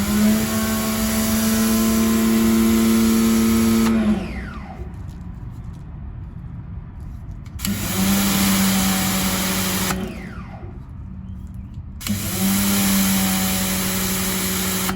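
AVA P60 electric pressure washer spraying through its stubby gun on the middle jet in three bursts of about four, two and three seconds. Each trigger pull starts the motor, which hums steadily under the hiss of the water jet, and its pitch slides down as it stops when the trigger is released.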